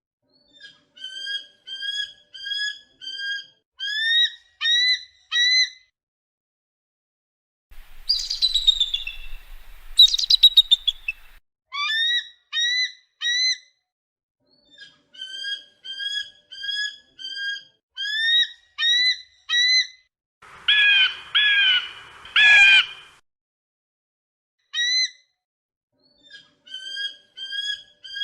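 Eagle calling: runs of short, high, whistled chirps, about two a second, each bending upward at the end. Between the runs come a few longer falling, screechy calls, and three loud harsh calls about three quarters of the way through.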